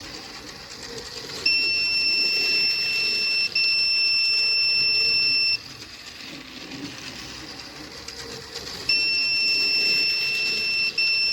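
Electronic buzzer sounding a steady high-pitched beep in long tones of about two seconds each. It comes in two pairs separated by a few seconds of quiet, with a very short break between the beeps of each pair.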